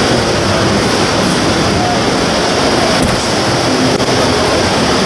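Steady, loud din of a crowded exhibition hall: many voices blended into an even hubbub, with faint fragments of speech.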